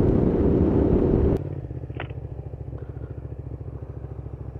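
Honda VTR250 V-twin motorcycle riding along at road speed, then, after a sudden cut about a second and a half in, the same engine running at low revs with a steady, fast low beat.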